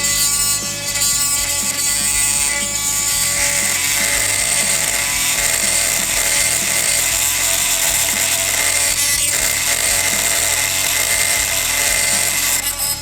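Oscillating multi-tool with a toothed blade cutting through copper water pipe: a steady, high-pitched buzzing that dips briefly near the end.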